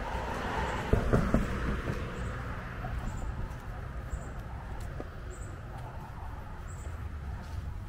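Steady low rumble of distant road traffic, with a few sharp knocks about a second in.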